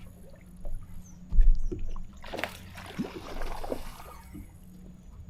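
Knocks, thumps and scrapes of handling aboard a fishing boat, with one loud low thump about a second and a half in, over a steady low hum.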